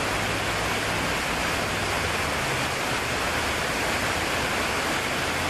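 A steady, even hiss with no breaks.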